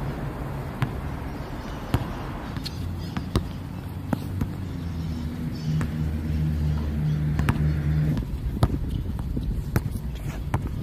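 Basketball bouncing on a hard outdoor court: sharp, irregular impacts about once a second as the ball is dribbled and comes back from shots. A vehicle engine hums underneath, louder in the second half.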